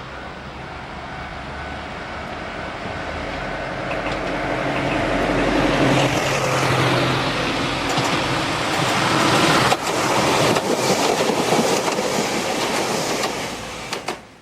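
Kotoden Shido Line electric train approaching and running past close by, its wheels clattering over the rail joints. The sound builds over the first six seconds, stays loud with sharp clicks, and cuts off suddenly near the end.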